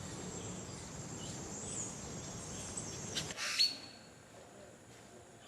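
Wild birds calling in wetland ambience: a few short high chirps over a steady high insect-like tone, with a sharp burst and a brief high note about three and a half seconds in.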